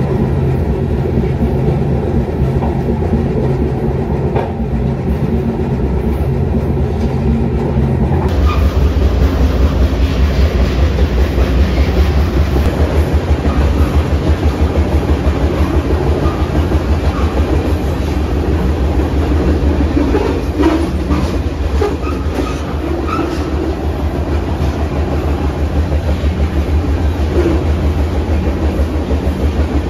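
Freight train rolling, heard from a rider on the end platform of a tank car: steady running noise of wheels on rail and rattling car hardware. About eight seconds in the sound shifts and grows a little louder, with a fast, regular pulsing.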